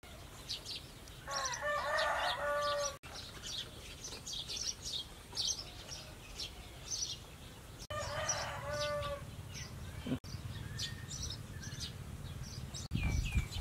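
A rooster crowing twice, each crow about a second and a half long, over steady high chirping of small birds.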